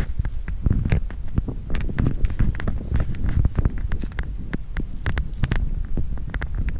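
Wind buffeting a handheld camera's microphone as a low, unsteady rumble, with irregular clicks and rustles from footsteps in grass and handling of the camera.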